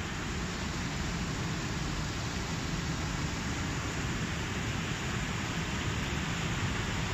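Water rushing steadily as it flows into a reservoir through an inlet.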